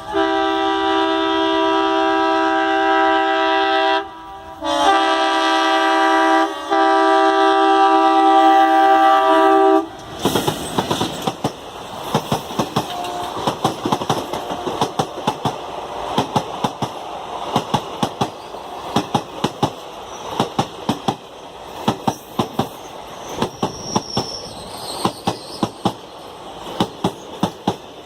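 Indian Railways passenger train sounding its horn in one long blast of several tones together, broken briefly about four seconds in and ending about ten seconds in. Then its wheels clatter over the rail joints in a quick, steady clickety-clack as the coaches pass.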